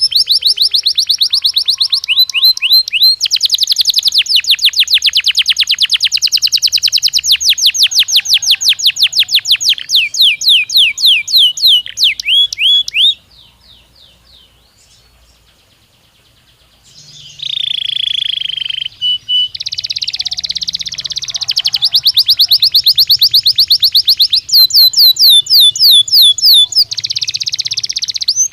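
Domestic canary singing: long, rapid trills of quickly repeated high notes, with a pause of a few seconds in the middle before the song resumes with rolling, buzzy phrases and more trills.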